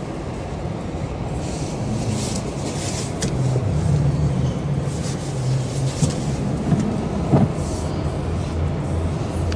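Road traffic: vehicle engines running with a steady low hum that rises and strengthens about four seconds in, several short hissing swells of passing vehicles, and a brief sharp knock near the end.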